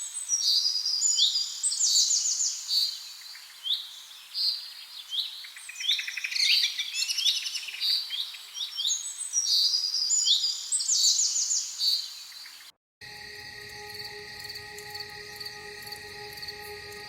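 Songbirds singing and chirping, a dense run of quick high notes and trills. About thirteen seconds in it cuts off abruptly and gives way to a steady drone of held tones, like ambient music.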